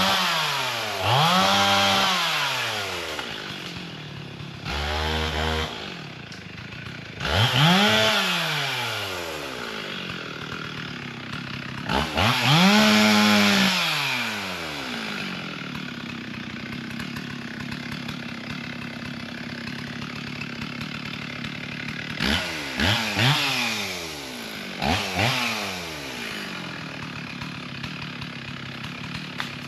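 Two-stroke chainsaw revved up and let back down about seven times, each rev rising in pitch and falling back within a couple of seconds, idling steadily in between.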